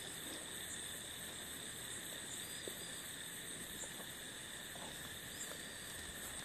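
Crickets calling in a steady night chorus.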